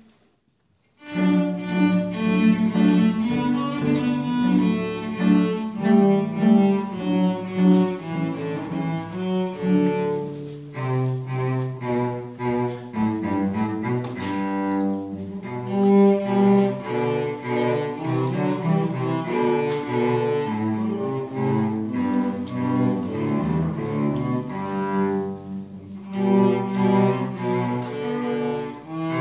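Two cellos playing a bowed duet, coming in about a second in after a brief silence and running on as a continuous line of changing notes.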